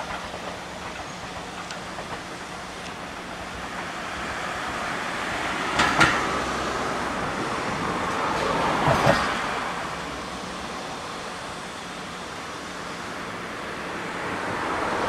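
Ichibata Electric Railway 1000-series electric train running along the track, its rumble swelling and then fading as it pulls away. Two sharp clacks stand out partway through.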